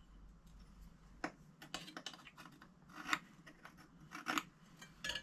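Faint, scattered light clicks and taps of small metal hand tools being handled against a steel part, about half a dozen ticks spread over a few seconds.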